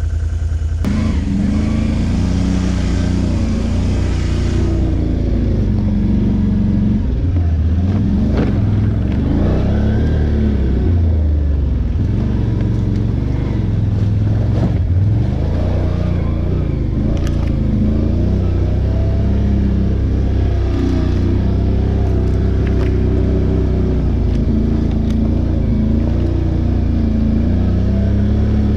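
ATV engine running under throttle while riding a trail, its pitch rising and falling again and again as the rider gets on and off the gas.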